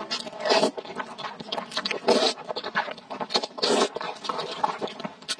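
Hand food preparation: irregular scraping and rustling noises, with a few louder scrapes spaced a second or more apart.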